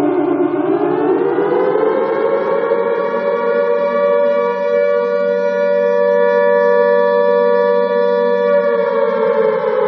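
Alarm siren wailing in a slow cycle: its pitch dips just after the start, rises over the next two seconds or so, holds steady for several seconds, then begins to fall near the end.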